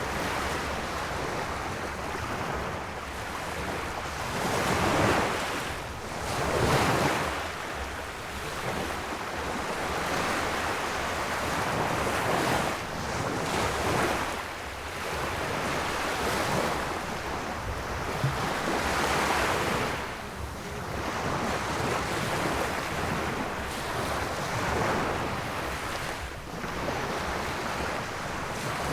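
Sea waves surging and washing in a continuous wash of noise that swells and ebbs every few seconds, the biggest surges about five and seven seconds in.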